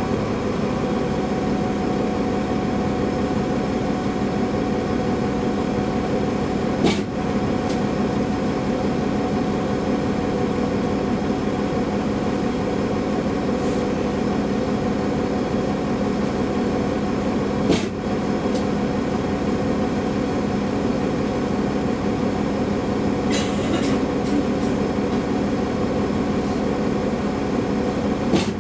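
Inside a Nova Bus LFS city bus: the engine and drivetrain running with a steady hum, broken three times, about eleven seconds apart, by a loud sudden thud. The rider asks whether the thudding comes from the transmission or something else.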